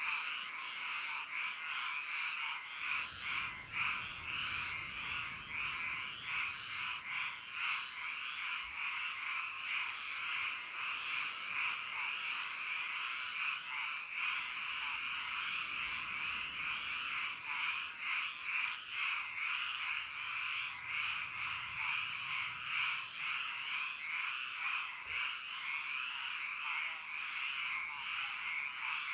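A chorus of many frogs calling at once: a dense, unbroken din of overlapping croaks that flickers rapidly without a pause.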